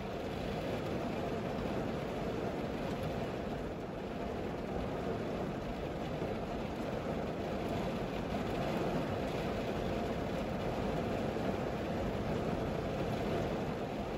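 Steady low hum of an idling car engine heard from inside the stationary car's cabin.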